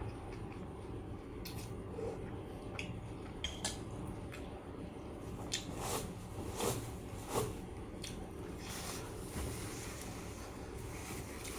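Close-up eating sounds: a person chewing with short wet smacks and clicks of the mouth, three clearer ones a little past the middle.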